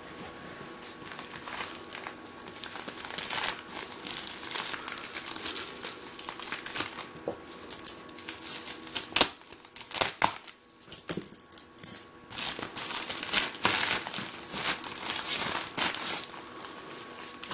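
Plastic mailing bag being cut open and its contents pulled out: continuous irregular crinkling and rustling of the plastic, with a short lull a little past halfway.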